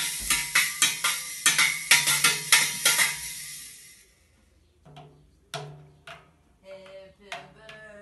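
Child playing a toy drum kit: quick, repeated hits on the cymbal, which rings brightly for about the first three seconds and then dies away. After a short lull come softer, scattered drum hits.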